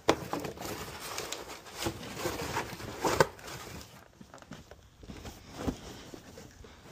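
Empty cardboard boxes being handled and shifted: rustling and scraping of cardboard, with sharper knocks at the start, about three seconds in and again near six seconds.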